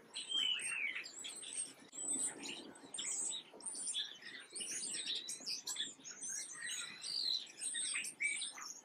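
Small songbirds chirping, with many short, high calls and quick falling notes overlapping continuously, like a chorus of several birds.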